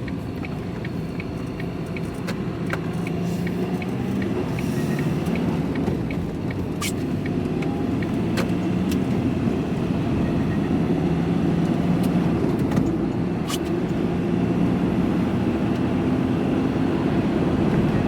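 Van engine and road noise heard from inside the cab while driving, growing a little louder about halfway through as the van picks up speed. A turn indicator ticks steadily for the first few seconds.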